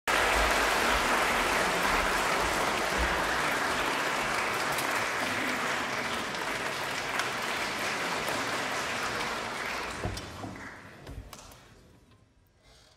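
Concert audience applauding, a dense steady clapping that thins out about ten seconds in, with a few last claps, and dies away to a hush.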